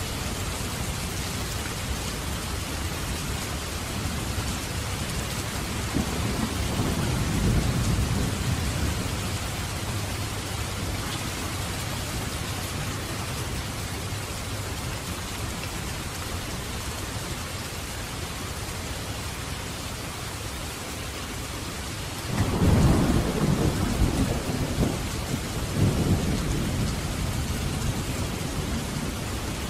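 Steady rain, with two rolls of thunder: a soft rumble swelling a quarter of the way in, and a louder one that breaks suddenly about two-thirds of the way in and surges again a few seconds later.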